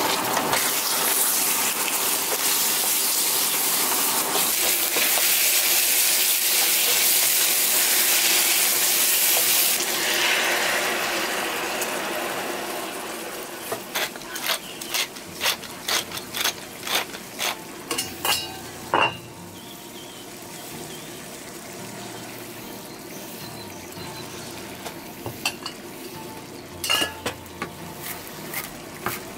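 Goose liver, onion and pepper sizzling loudly in a frying pan on a gas camping stove while being stirred with a wooden spatula. About halfway the sizzle dies down and a run of sharp clicks follows as a pepper mill grinds over the pan, then a quieter sizzle with a few knife taps on a wooden chopping board near the end.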